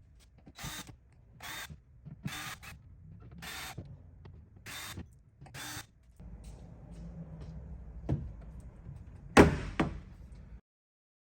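Power screwdriver backing out the six screws of a car door panel, in six short whirring bursts about a second apart. Near the end comes a click, then a sharp, loud clack of a part knocking, with a second clack just after.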